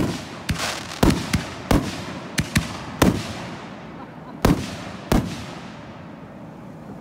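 Aerial fireworks bursting: about ten sharp bangs at irregular intervals over the first five seconds, each trailing off in an echo, the last one dying away.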